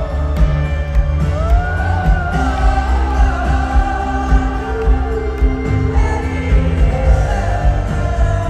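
Live pop ballad: a female lead vocal sings a gliding, sustained melody over a full band with a heavy bass and drum beat. It comes through a concert PA system and is recorded from within the crowd.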